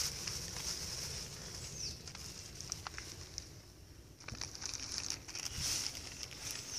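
Plastic wrap and plastic tag tape crinkling in the hands, with a few sharp clicks, over a steady high-pitched insect chorus.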